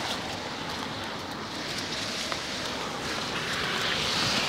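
Steady hiss of rain and car tyres on a wet street, swelling a little near the end as a car comes closer.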